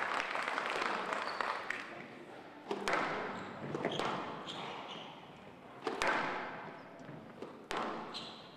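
A squash ball being struck by rackets and hitting the court walls: sharp smacks about a second or two apart, each ringing on in the large hall. Applause dies away over the first two seconds.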